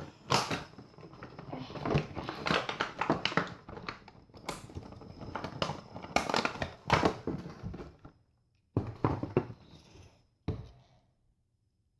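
Toy packaging crinkling and rustling as it is handled and opened, dense for most of the time, then two short rustles near the end.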